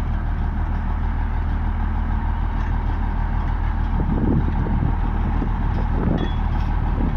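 Komatsu bulldozer's diesel engine running steadily under way in second gear, with a patch of rougher clattering noise about four seconds in.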